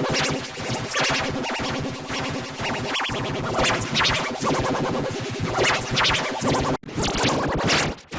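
Loud, heavily processed electronic music with record-scratch-like sounds. It breaks off briefly about seven seconds in, then starts again.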